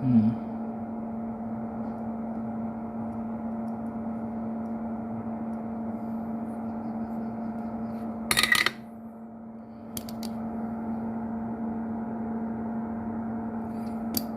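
Steady electrical hum from workbench equipment, with a constant low tone. A short clatter breaks it about eight seconds in, and brief clicks come about ten seconds in and near the end.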